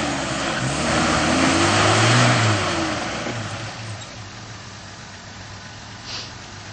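Off-road pickup engine revving in short rises and falls as it crawls over a rock step, loudest about two seconds in, then easing back to a low steady run for the rest.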